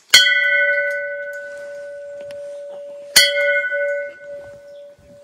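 Hanging temple bell struck twice, about three seconds apart, each strike ringing on with a steady hum that fades slowly.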